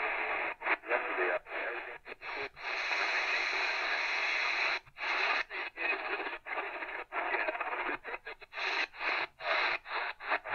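Tecsun PL-398BT portable receiver playing AM medium-wave static: a thin hiss with no bass, cut by many brief silent gaps as the radio is stepped from frequency to frequency.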